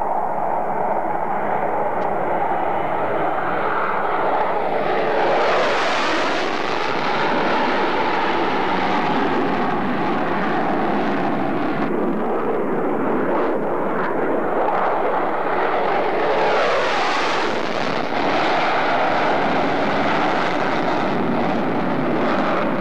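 Block 30 F-16C fighters' General Electric F110 turbofans in afterburner on takeoff: continuous loud jet noise. It swells twice, with a hissy peak and a falling pitch as a jet passes, about five seconds in and again about sixteen seconds in.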